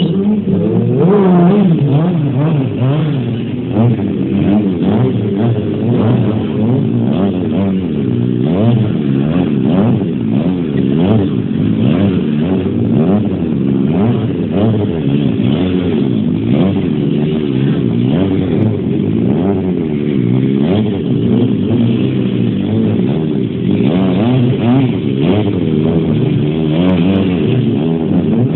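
Sport motorcycle engine revved hard and let fall over and over, its pitch swinging up and down in quick throttle blips as the bike is ridden through wheelies and stoppies.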